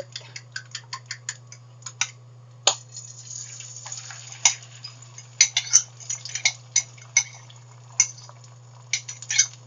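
A metal utensil clicking and clinking against a bowl as the eggs are worked, in quick runs of light ticks with a few sharper strikes. A steady low hum runs underneath.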